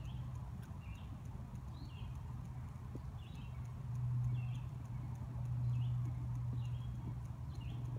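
Outdoor background sound: a steady low hum, swelling a little about halfway through, with a short high chirp repeating about once a second.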